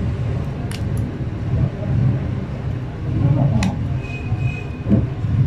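Steady low background rumble, with a few sharp clicks and a duller knock as a metal spudger and fingers work on the opened phone's frame.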